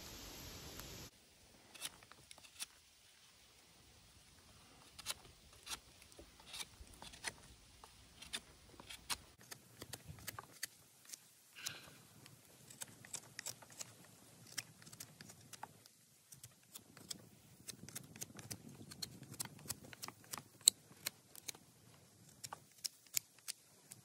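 Large fixed-blade knife whittling a green wooden stick: a run of short, irregular scraping cuts and sharp clicks as the blade shaves the wood.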